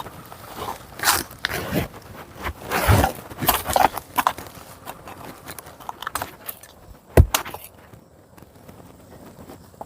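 Cassava being dug up and handled by hand: irregular crunching, scraping and rustling of roots, soil and vegetation, with one sharp knock about seven seconds in, then quieter.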